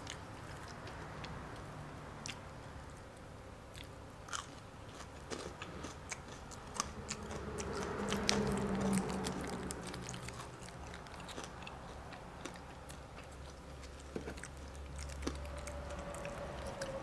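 Close-miked eating: a person chewing and biting food, with many small mouth clicks and crunches scattered throughout. About eight seconds in there is a brief, louder low hum.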